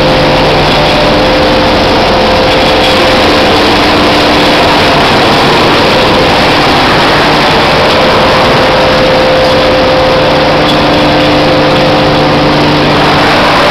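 Electric-motor-driven hammer mill and the surrounding processing-plant machinery running: a loud, steady industrial din with a low hum of a few steady tones.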